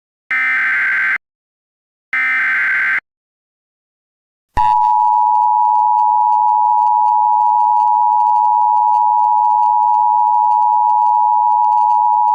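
Emergency Alert System header: the last two of three SAME digital data bursts, each about a second of buzzy electronic warble and a second apart. After about a second and a half of silence comes the steady two-tone EAS attention signal (853 and 960 Hz) for about eight seconds, which cuts off abruptly. It announces an incoming tornado emergency alert.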